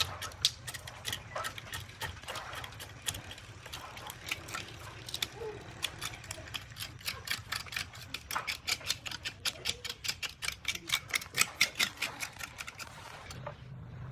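A run of sharp clicks or taps over a low steady hum. They come irregularly at first, quicken to about five a second in the second half, and stop abruptly near the end.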